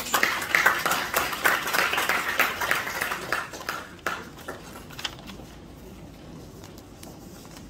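Audience applauding, fading away after about four seconds into quiet room tone.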